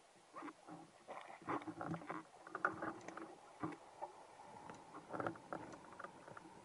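Underwater sound picked up by a diver's camera: irregular clicks, knocks and crackles from the water and the diver's own movement, with a faint steady tone from about four seconds in.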